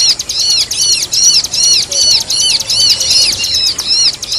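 Bird-song recording of a bar-winged prinia (ciblek) mixed with a 'kejepit' trapped-bird call: a fast, even series of high, arched chirps, about three a second, repeating without a break.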